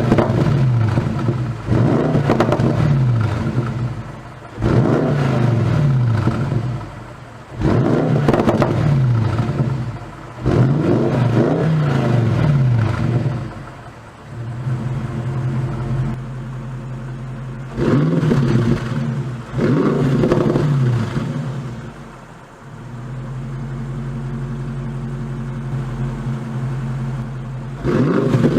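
Bentley Continental GT3-R's twin-turbo 4.0-litre V8, through an Akrapovic titanium exhaust, revved about seven times, each rev climbing and falling back. Between the revs it runs steadily at low revs, longest in the middle and near the end.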